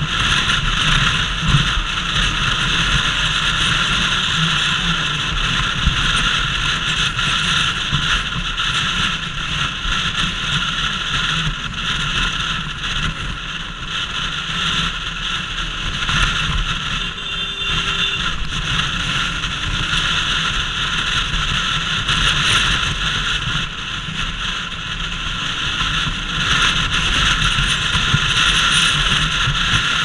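Wind blast rushing over a helmet-mounted action camera on a moving Bajaj Pulsar RS200 motorcycle, a steady loud noise with the bike's single-cylinder engine running beneath it.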